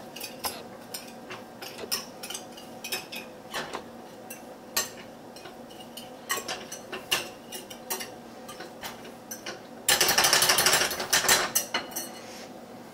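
Wire whisk clicking and scraping against a ceramic bowl while mixing a cheese stuffing: scattered irregular clicks, then a burst of fast, dense clicking about ten seconds in.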